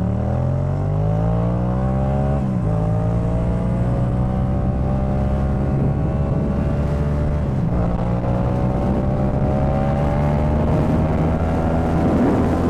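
Yamaha MT-07's parallel-twin engine through a Jeskap K4 full exhaust system, accelerating on the road: the revs climb, drop at an upshift about two and a half seconds in, climb slowly again, drop at a second upshift nearly eight seconds in, then rise gently.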